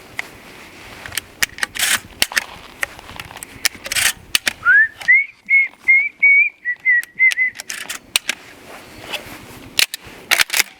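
A person whistling a short run of notes about halfway through, starting with an upward slide, over scattered sharp clicks and knocks.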